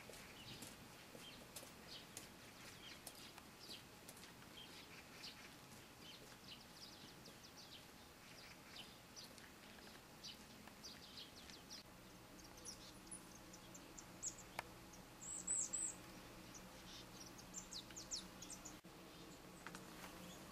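Faint high chirps of small birds, scattered through, with a few louder calls in the second half. A low steady hum comes in about halfway through.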